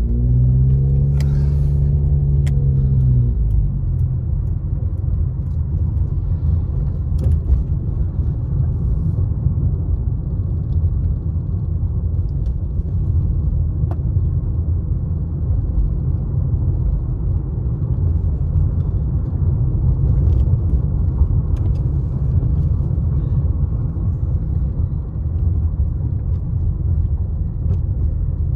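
A car being driven, heard from inside the cabin: a steady low rumble of engine and road noise. A humming tone rises and then falls over the first three seconds or so.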